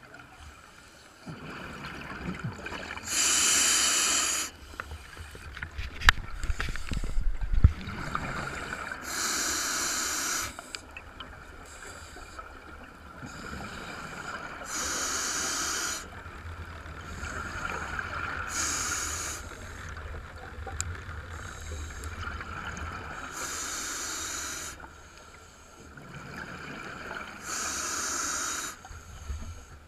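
A scuba diver breathing through a regulator underwater, with a loud rush of air and bubbles about every five to six seconds and a quieter hiss between. A few sharp knocks come about six to eight seconds in.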